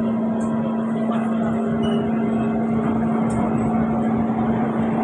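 Kawasaki C151 metro train running between stations, heard from inside: a steady rumble of wheels on the track under a constant low hum.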